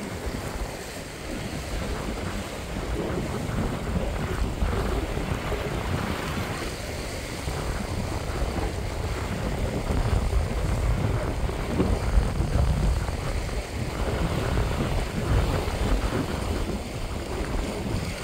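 Wind buffeting the microphone in gusts, over the rush and splash of choppy water around a sailboat under way.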